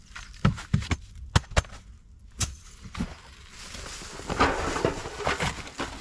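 The metal frame of a folding camp stool clicks and knocks about six times as it is handled. After that comes a few seconds of rustling from a plastic tarp and a fabric bag being moved about.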